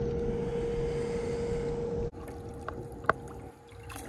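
Steady hum of the boat's electric trolling motor over a low rumble, dropping sharply in level about two seconds in. A single sharp knock about three seconds in.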